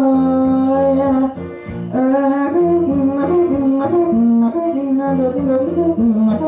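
A hoarse, rough voice sings a Thai lae melody in long held, wavering notes over instrumental accompaniment, with a brief break in the line about a second and a half in.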